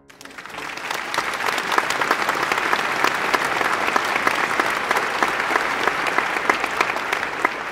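Crowd applauding: many hands clapping, building up over the first second and then going on steadily.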